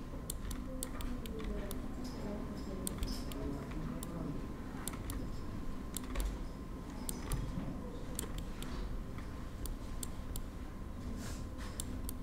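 Irregular clicking of a computer mouse and keyboard as someone works at a computer, over a low steady background hum.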